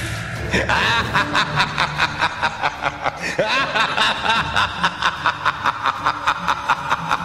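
A person laughing in a long run of short, quick snickers, about four a second.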